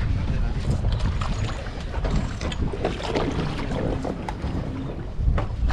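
Fishing boat's motor running low and steady, with wind buffeting the microphone.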